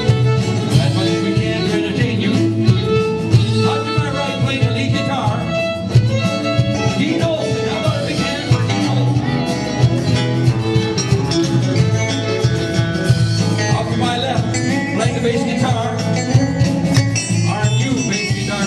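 Live band playing a country-style tune: bowed fiddle, electric guitar and electric bass over a steady beat.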